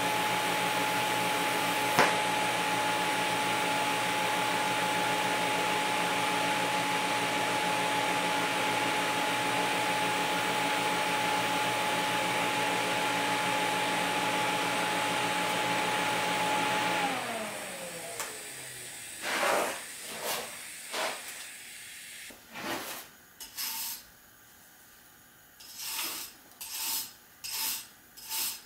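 TIG welding arc from a Miller Dynasty 350 on stainless tubing, running at a set current as a steady hiss with a steady whine, with one sharp click about two seconds in. About seventeen seconds in, the whine slides down in pitch as the current is brought down and the arc stops. Then a hand brush scrubs the fresh weld in short, separate strokes that come quicker near the end.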